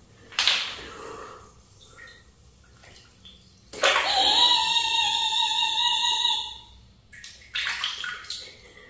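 Water running into a bathtub for about three seconds, starting about four seconds in, with a steady ringing pitch in the rush, then stopping. Light knocks and rustles follow near the end.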